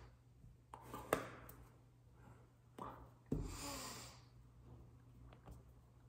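Faint breathy mouth sounds and short exhalations with a few lip clicks. About three seconds in comes a longer puff of breath blown through pursed lips. A steady low room hum lies under it all.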